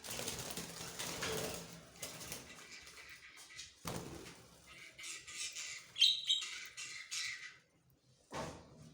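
Budgerigars chirping and flapping their wings, with a cluster of high chirps in the second half.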